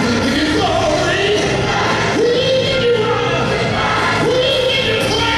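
A large gospel choir singing, with long held notes, backed by live music.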